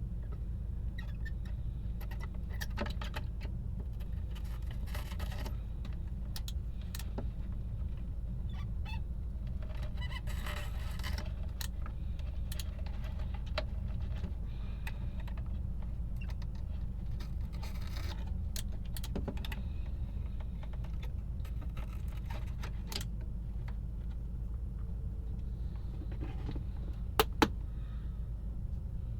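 Scattered small clicks, clinks and rustles of parts and tools being handled at a workbench over a steady low hum, with two sharp loud clicks near the end.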